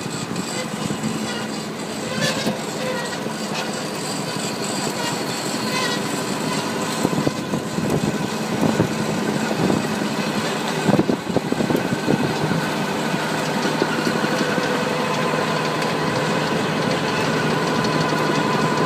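Engine of a working farm machine running steadily, with scattered knocks and clatter about halfway through.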